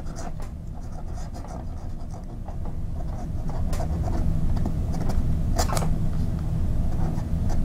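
Flexible nib of a Waterman 52V fountain pen scratching across paper in short strokes as a word is written, with a few sharper ticks as the nib is set down and lifted. The nib is more scratchy than it should be and still needs smoothing.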